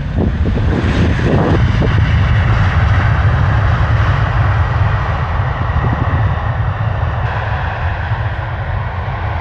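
Jet engines of a twin-engine wide-body airliner rolling out on the runway just after landing: loud, steady jet noise with a deep rumble that slowly fades toward the end.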